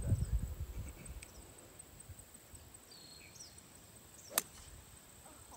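A golf club striking a ball off the tee: one sharp crack about four seconds in. A low rumble on the microphone fills the first second.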